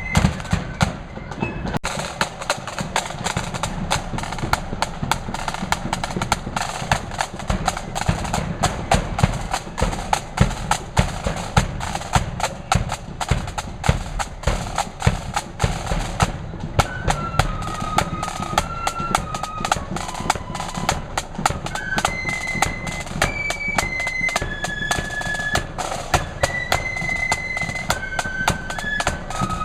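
Flute band's drums, snare and bass, beating a marching rhythm on their own, joined about halfway through by the flutes playing a melody in clear held notes.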